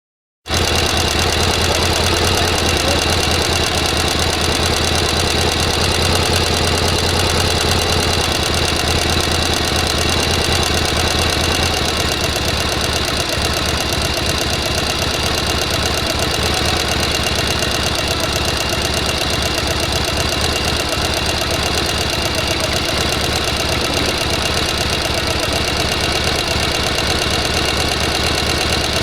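Sewing machine running continuously at speed, its needle mechanism clattering in fast, even strokes over a motor hum. It starts abruptly, and the low hum eases somewhat about twelve seconds in.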